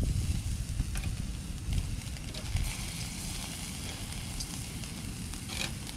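Meat sizzling on a small barbecue grill's wire grate, a steady hiss that grows about two and a half seconds in, with metal tongs clicking against the grate a few times as the slices are turned. Wind rumbles on the microphone, heavier at the start.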